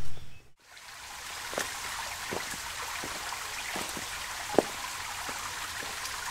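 Shallow forest stream trickling over rocks: a steady hiss of running water that fades in after a brief drop-out near the start, with a few sharp taps, the loudest about four and a half seconds in.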